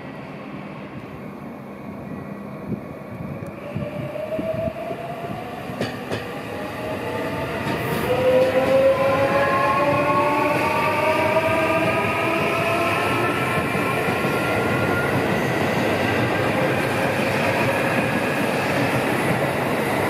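A JR Central 315 series electric multiple unit pulling away and accelerating. Its inverter-driven traction motors whine in several tones that rise steadily in pitch, over the rumble of the cars that grows louder from about four seconds in as the train gathers speed past the platform.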